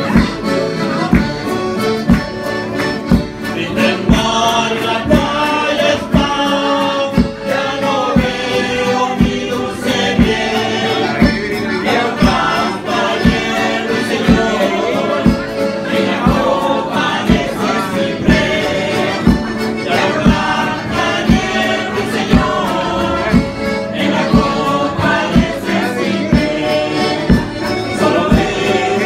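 Chilote folk ensemble performing a vals chilote live: several voices singing together, with accordion and acoustic guitar over a steady beat.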